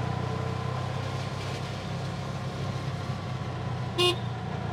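Tuk-tuk (auto-rickshaw) engine running steadily, heard from inside the cab, with one short horn toot about four seconds in.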